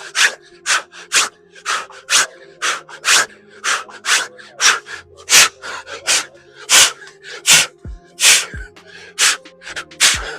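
A man breathing hard in short, sharp, forceful bursts, about two a second, as he works through a fast plyometric bodyweight set, over steady background music. A few low thumps come in the second half.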